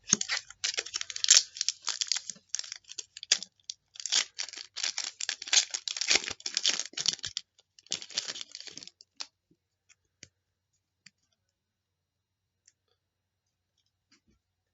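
Crinkling and crackling of a trading-card pack and its cards being handled and pulled apart, the cards stuck together, for about nine seconds; then only a few faint ticks.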